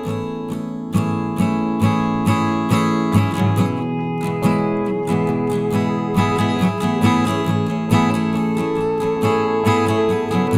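Background music: an acoustic guitar strummed and plucked in a steady, gentle rhythm.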